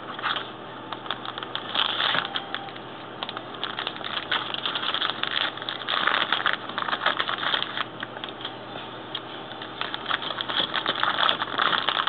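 Crinkling and rustling of a metallized antistatic plastic bag being handled and opened, irregular and continuous, over a faint steady low hum.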